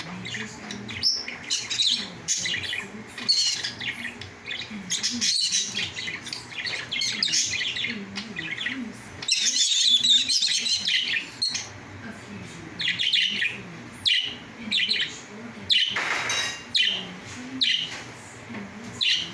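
African lovebirds chirping in repeated short, high, sharp calls, with a longer run of rapid chattering about ten seconds in.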